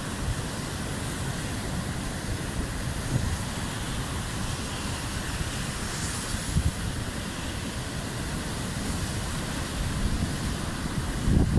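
Strong wind buffeting the microphone in uneven gusts, over the steady hiss of breaking surf.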